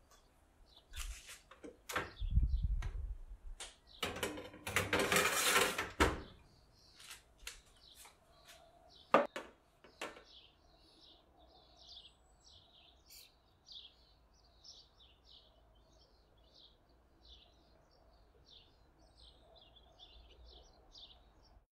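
Knocks, clatter and a long sliding noise as a metal baking tray is handled and pushed into the oven, then a sharp click. After that, small birds chirp steadily, about two chirps a second.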